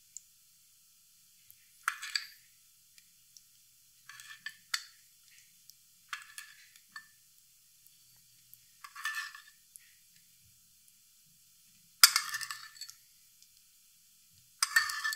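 Metal spoon clinking against the sauce bowl and glass baking dish while a marinade is spooned over a raw goose: about seven separate short clinks with brief ringing, spaced irregularly a second or two apart, the loudest one about three-quarters of the way through.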